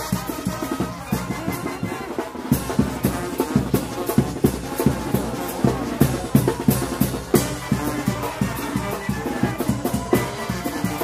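Live Mexican brass band (banda) playing a dance tune: sousaphones, trombones, clarinets and saxophones over a steady bass drum and snare beat.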